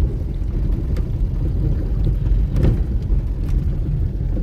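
Steady low rumble of a car driving, with a couple of light knocks about one and two and a half seconds in.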